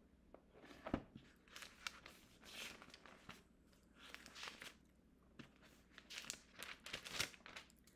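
Thin Bible pages being leafed through, rustling softly and unevenly, with a few sharper clicks and flicks as they turn.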